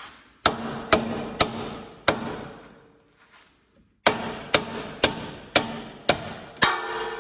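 Dead blow hammer striking the suspension to tap a new lower ball joint stud up into the steering knuckle. Four blows about half a second apart, a pause of about two seconds, then six more, each leaving a short metallic ring.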